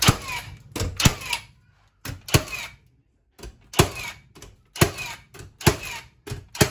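Milwaukee M18 cordless framing nailer firing nails into a wooden board, about seven shots roughly a second apart, each a sharp bang followed by a short falling whir.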